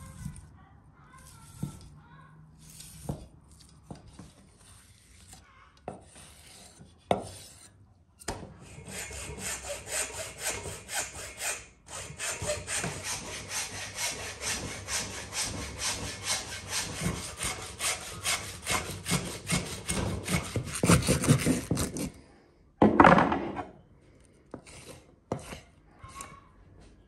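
A saw cutting with steady back-and-forth strokes for about fourteen seconds, starting about eight seconds in. A few scattered knocks come before it, and a single loud thump follows shortly after it stops.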